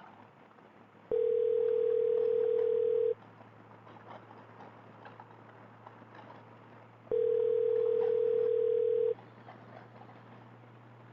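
Telephone ringback tone of an outgoing call: two steady 2-second rings about six seconds apart, the call ringing unanswered, over a low steady hum.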